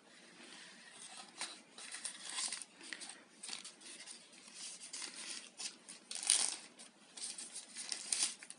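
Packaging being handled as a small fitness-band box is opened: irregular crinkling rustles of plastic and cardboard with small clicks, the loudest rustle a little past halfway.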